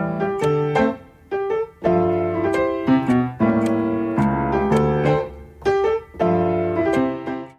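Background music: a piano piece of sustained notes and chords, cutting off abruptly at the end.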